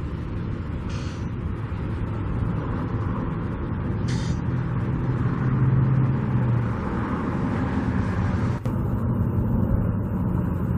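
Street traffic, led by a heavy vehicle's engine running and growing louder in the middle, with two brief air hisses about one and four seconds in.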